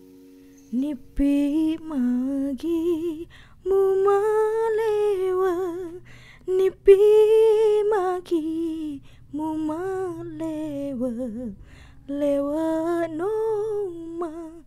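A woman singing a slow lullaby alone, without accompaniment, in phrases of a second or three each with a wavering, ornamented melody.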